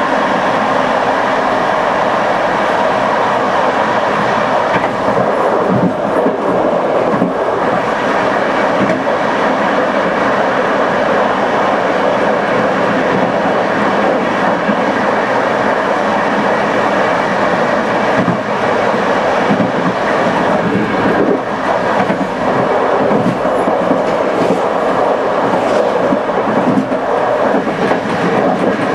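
PKP TLK passenger train running on the line, a steady rumble of wheels on rails with scattered sharper clacks of the wheels over the track.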